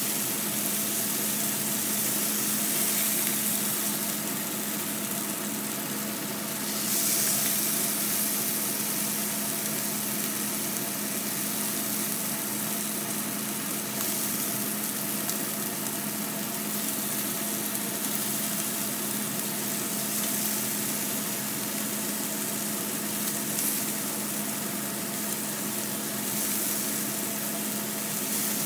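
Pieces of beef steak sizzling in a hot frying pan: a steady frying hiss with a few louder spells and a steady low hum underneath, sped up to double speed.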